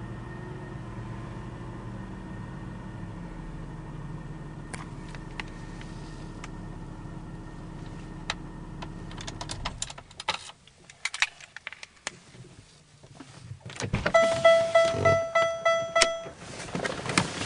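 The rebuilt 3800 V6 of a 1998 Pontiac Grand Prix GT idles steadily, then is switched off about ten seconds in. Key and interior clicks follow. Near the end a dashboard warning chime repeats rapidly for about two seconds.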